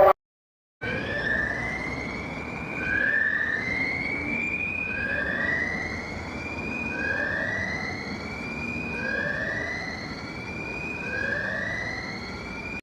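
Emergency alert siren tone whooping: its pitch climbs, drops back and climbs again, about one rise every two seconds. It starts about a second in.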